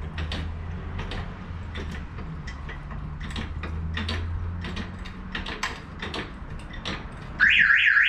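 Hydraulic floor jack being pumped under a car, with repeated mechanical clicks from its handle and pump. Near the end, the car's StarLine aftermarket alarm siren sets off loudly with a fast warble, triggered by its tilt sensor as the car is lifted.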